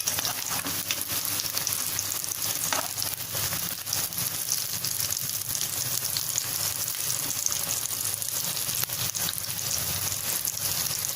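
Besan-battered potato vadas deep-frying in hot oil, a steady dense sizzle and crackle as they brown on their second side, with a few light clicks now and then.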